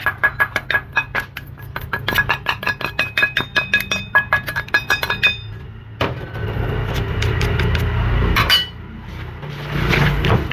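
Metal spoon tapping and scraping quickly against an upturned stainless steel bowl to knock chopped green onion out, the bowl ringing with each tap. Then chopsticks stir a wet mixture of minced pork, vegetables and egg in a plastic bowl, with one sharp clink about two-thirds of the way through.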